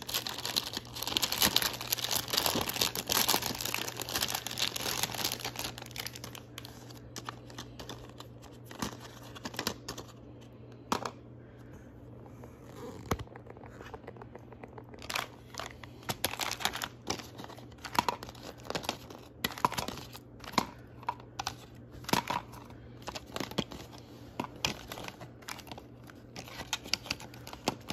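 Plastic candy packaging crinkling and rustling as it is handled, dense over the first six seconds or so. After that come scattered shorter crinkles and light clicks as sweets are set down on a plastic platter.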